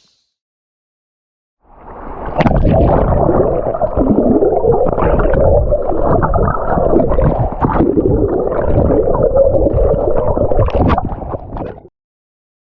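Muffled water gurgling and bubbling heard with the camera under the sea, as during a sea kayak capsize and roll. It starts suddenly after a couple of seconds of silence and stops abruptly near the end.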